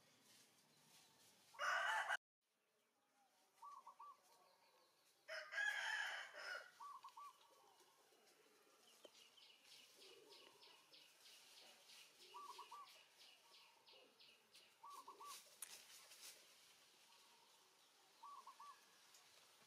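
A rooster crowing twice: a short crow about two seconds in that cuts off abruptly, then a fuller crow about six seconds in. Faint short chirping calls recur at intervals.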